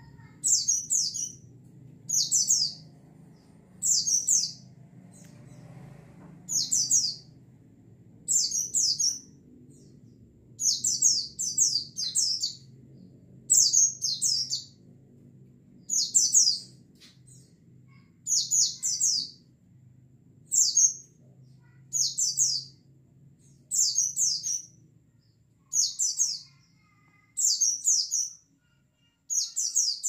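White-eye (pleci) song: short, high twittering phrases of several quick notes, repeated about every one and a half to two seconds.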